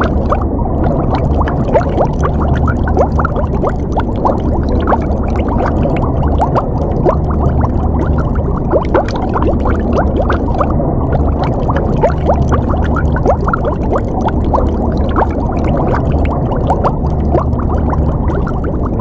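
Underwater water sound: a steady low rumble under a constant, dense stream of bubbling and gurgling, muffled, with little high-pitched sound.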